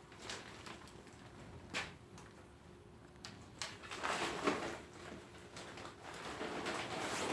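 Things being handled while a work area is set up: a few light knocks, then scraping and rustling about four seconds in and again near the end.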